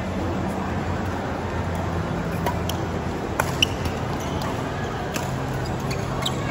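Badminton doubles rally: sharp racket strikes on the shuttlecock and brief shoe squeaks on the court mat, scattered through the second half, over a steady background hum.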